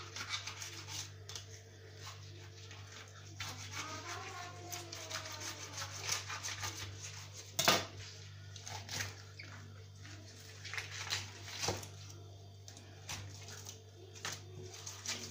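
Gloved hands scraping and peeling the scales and skin off a whole carp on a stone counter: many short wet rubbing and scraping strokes, with one sharp click a little past halfway. A steady low hum runs underneath.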